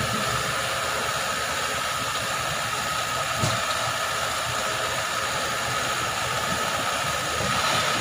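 Eicher tipper truck's hydraulic hoist raising the loaded dump body: the engine runs at raised revs driving the hydraulic pump, giving a steady mechanical whine with a high humming tone, slightly louder near the end as the body nears full tilt.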